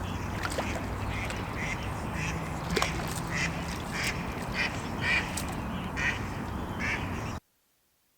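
A duck quacking in a run of short calls, about two a second, over steady outdoor background noise. The sound cuts off abruptly near the end.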